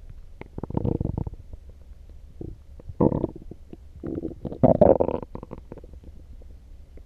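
Human stomach growling and gurgling loudly, stirred up by coffee: three bouts of bubbly rumbling, the last the longest and loudest.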